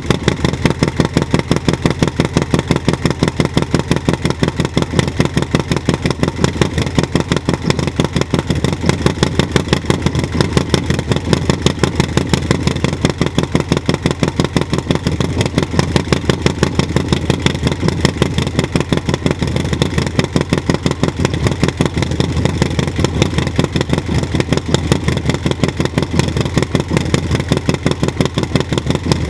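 Harley-Davidson Low Rider S Milwaukee-Eight 114 V-twin, fitted with an S&S 475 cam and a Two Brothers Racing exhaust, idling with a steady, even pulse just after being started. It has a deep, low exhaust note.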